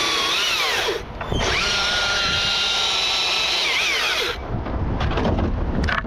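Husqvarna T542i XP battery chainsaw running in two bursts of high electric whine. The first cuts off about a second in, and the second runs from about a second and a half to four and a half seconds. Each ends with the pitch sliding down as the trigger is released.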